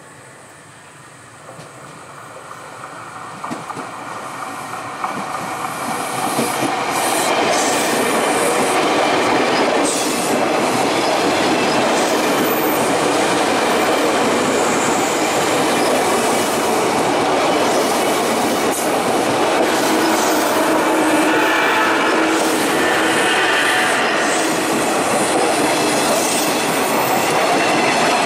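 KRL Commuter Line electric multiple-unit train approaching and passing close by. It grows louder over the first six seconds or so, then holds a steady loud rush of wheels on rail with knocks from the rail joints. A wheel squeal comes in during the second half.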